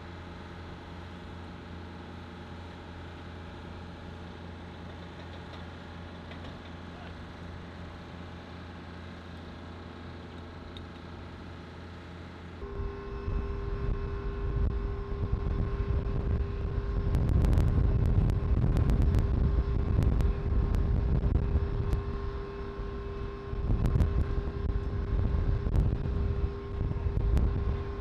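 Steady hum of flight-line ground support equipment running. About halfway through it changes to a louder, uneven rumble carrying a steady whine, with a few sharp clicks and knocks of handled hardware.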